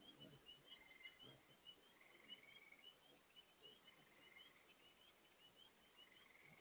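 Faint outdoor ambience: the steady rush of a large spring far below, with a small call repeating short rising chirps about three times a second and a few sharp, high chips.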